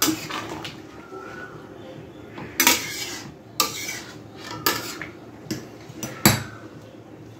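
Spatula stirring a chicken curry in a metal kadai, clanking and scraping against the pan in several sharp knocks about a second apart over a faint steady hiss.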